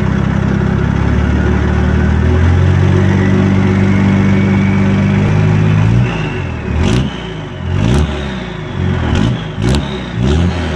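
Toyota 80 series Land Cruiser's turbocharged engine pulling steadily, its turbo whistle rising slowly in pitch. About six seconds in, the engine revs rise and fall several times with the whistle following them, and there is a sharp short hiss at four of the peaks.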